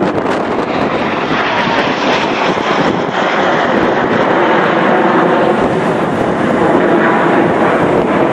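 The Red Arrows' nine BAE Hawk T1 jets passing overhead in formation: a steady rush of jet engine noise that grows a little louder after about three seconds.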